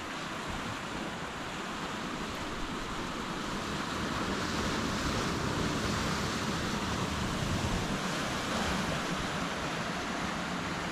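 Pacific Ocean surf washing steadily against the shore, swelling a little louder about a third of the way in, with some wind on the microphone.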